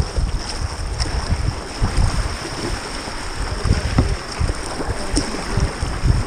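Whitewater kayak moving down a river riffle: rushing, choppy water and paddle strokes splashing, with wind buffeting the microphone in irregular low gusts.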